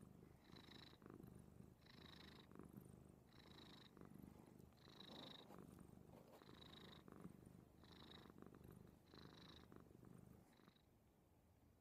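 Tabby-and-white cat purring close up, the purr swelling and easing with each breath about once a second, then stopping shortly before the end.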